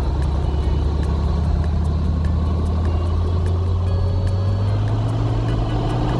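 Cessna single-engine plane's piston engine and propeller running at taxi power as it taxis past, a steady low drone whose pitch rises slightly over the last couple of seconds.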